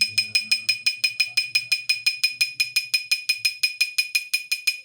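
Drinking glass struck rapidly and repeatedly with a metal spoon, about six ringing clinks a second at one clear pitch, stopping near the end; a loud sound.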